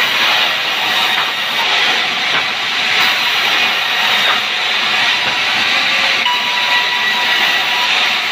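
Large band sawmill running and sawing hardwood timber: a loud, steady hissing rasp of the blade through the wood, with a faint steady whine coming in after about six seconds.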